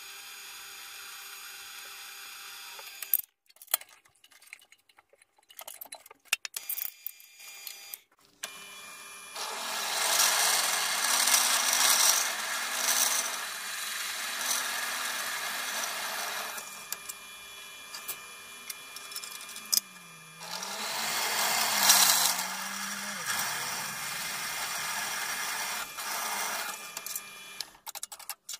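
Bench drill press running, its twist bit cutting into a steel bar in two long bouts of loud grinding noise. The motor stops for a few seconds near the start, with a few clicks of handling, then runs again.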